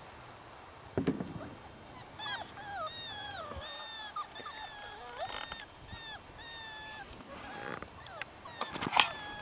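Six-week-old Border Collie puppies whining and yelping, a run of short high cries that fall in pitch, about two a second from about two seconds in. A thump about a second in, and a sharp knock near the end, the loudest sound.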